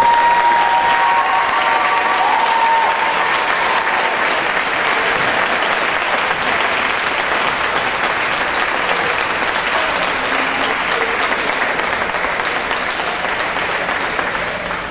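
Crowd in a gym applauding and cheering after a point, a steady clapping din that eases off near the end, with a long held pitched tone in the first few seconds.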